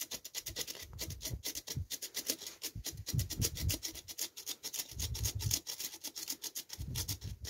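Spark plug scrubbed quickly back and forth across the bristles of a wire brush: a fast, steady run of scratchy rasping strokes as the blackened plug is cleaned, with a few dull knocks of the brush on the floor.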